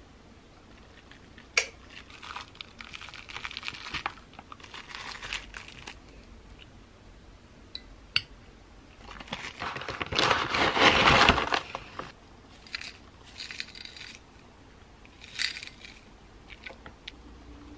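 A metal spoon scooping thick strained yogurt into a glass bowl, with a couple of sharp clinks of spoon on glass. About ten seconds in comes the loudest part, a few seconds of crinkling packaging and rattling as granola is poured in from its bag.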